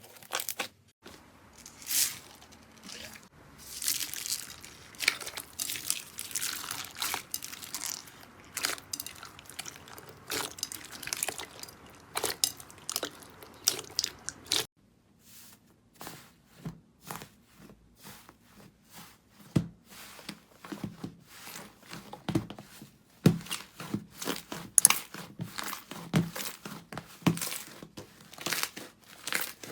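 Slime being squeezed and poked by hand, making dense crackling and crunchy popping sounds. The background changes abruptly about halfway through as one clip gives way to another.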